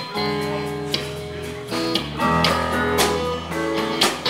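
Live band playing an instrumental passage, with guitar over bass, keyboards and drums.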